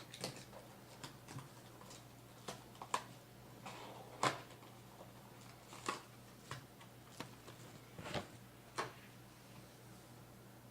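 Trading-card box and packs being handled and opened: scattered light clicks and taps at an irregular pace, with one sharper click about four seconds in. A faint steady hum lies underneath.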